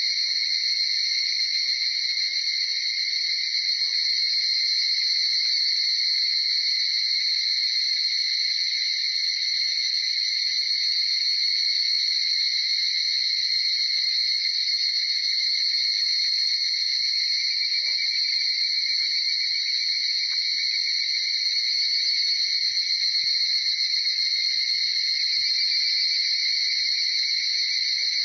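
Dense chorus of many higurashi cicadas (Tanna japonensis) calling at once, their overlapping calls merging into one steady, high-pitched sound with no break.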